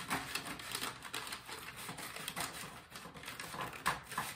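An Iron Orchid Designs rub-on transfer sheet being cut into pieces: a quick, irregular series of clicks and rustles, with one louder click near the end.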